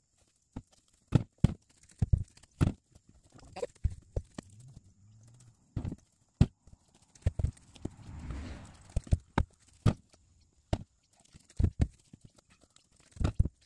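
Firewood logs being tossed by hand and landing on other logs: irregular hollow wooden knocks and clunks, sometimes two or three in quick succession.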